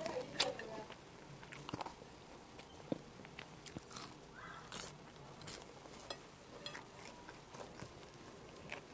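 A person biting and chewing fast food: scattered soft crunches and small mouth clicks.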